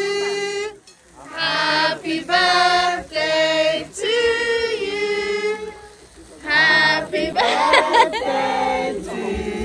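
A group of people singing a birthday song together, unaccompanied, in phrases of a second or two with short breaths between.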